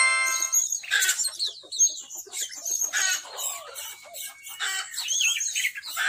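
Blue-crowned hanging parrots giving many short, high, thin chirps and a few squeaky sweeping calls, the calling of decoy birds set out to lure wild ones. A chime-like ringing fades out about half a second in.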